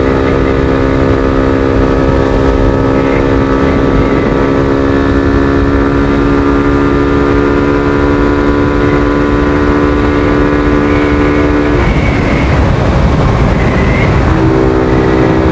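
Suzuki Thunder 125's single-cylinder four-stroke engine running at a steady cruising speed under heavy wind noise on the microphone. About twelve seconds in the engine note drops out under the rushing wind for a couple of seconds, then comes back at a slightly different pitch.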